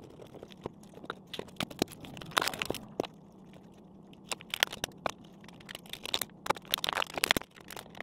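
Thin plastic water bottle crinkling and crackling as it is handled, with irregular sharp clicks and crunches.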